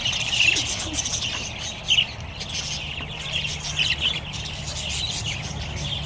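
A flock of budgerigars chattering, with many quick overlapping chirps and warbles, over a low steady hum.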